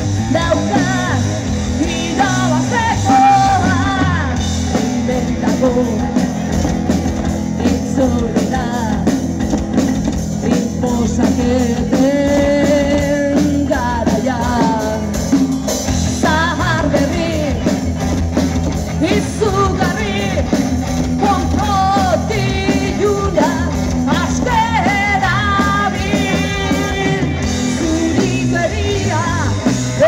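A rock band playing live: a woman singing over electric guitar, bass guitar and a drum kit.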